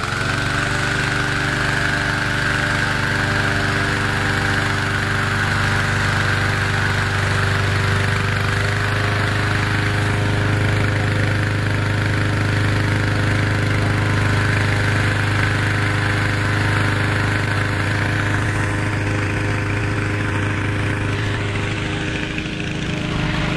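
Hot-air balloon inflator fan with a petrol engine running steadily, blowing cold air into the balloon envelope. Its tone shifts slightly near the end.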